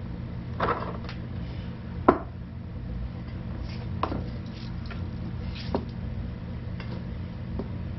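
Spice jars and small containers being handled and set down on a kitchen counter: about five light knocks and clacks, a second or two apart, the sharpest about two seconds in, over a steady low hum.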